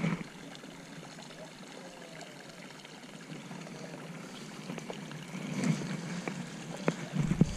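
Steady trickle of water running into a pond, with a few faint clicks near the end.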